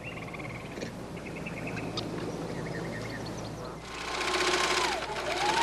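Faint high chirps, then about four seconds in a Baby Lock sewing machine starts running with a steady whine. The whine dips in pitch briefly about a second later and comes back up.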